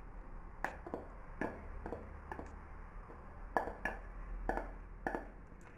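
A spoon scraping and knocking against the inside of a metal cooking pot as thick, hot chocolate pudding is emptied out of it: about ten sharp, irregular clicks spread over a few seconds.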